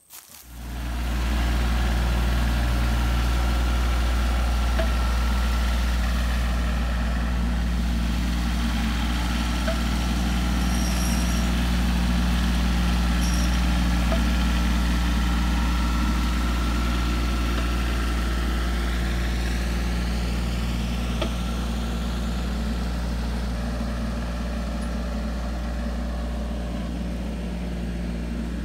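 The WoodMaxx sawmill's engine idling steadily. It comes in abruptly at the start and holds a low, even hum throughout.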